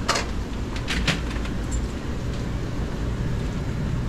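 Street-market ambience: a steady low rumble, with three short sharp clatters in the first second or so.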